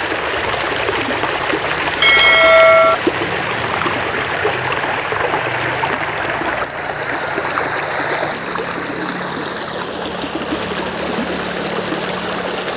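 Shallow river water flowing steadily. About two seconds in, a bright bell-like chime of several tones rings for about a second: the sound effect of an on-screen subscribe-button animation.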